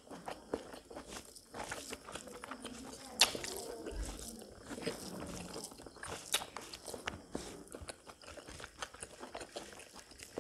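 Close-miked chewing of pork and rice, with mouth clicks at an uneven pace and one sharp, loud click about three seconds in.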